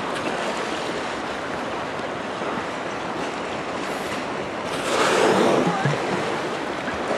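Steady wash of choppy sea water and wind around a kayak, with one loud breathy whoosh about five seconds in: a humpback whale blowing as it surfaces close by.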